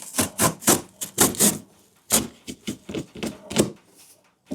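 Box knife sawing through the corrugated cardboard of a water heater's shipping box in quick rasping strokes, about four or five a second, with a short pause just before halfway.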